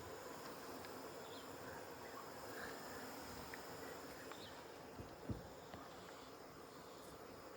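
Quiet outdoor ambience with insects buzzing steadily and a few faint, short high chirps. Two soft low thumps come about five seconds in.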